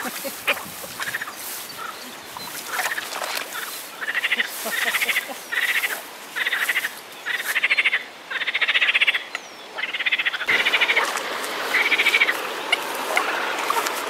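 A chorus of frogs croaking. The calls are loud, each made of rapid pulses lasting about half a second to a second, and they come one after another nearly every second from about three seconds in.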